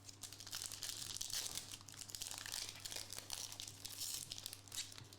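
Foil wrapper of a Bowman Chrome trading-card pack crinkling as it is torn open, a dense run of fine crackles.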